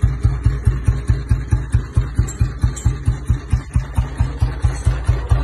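Royal Enfield Bullet 350's cast-iron single-cylinder engine with a heavy crank, idling through its chrome exhaust. It gives a slow, even thump of about five beats a second.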